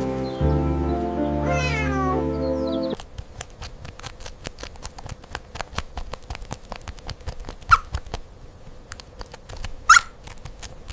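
Domestic cat meowing over background music: one long meow about two seconds in. The music then stops, and two short mews come later over a faint crackle of small clicks.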